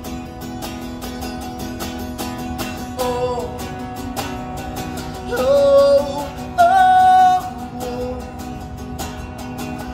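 Acoustic guitar strummed in a steady rhythm, with a man's voice singing long held notes over it that swell louder about halfway through.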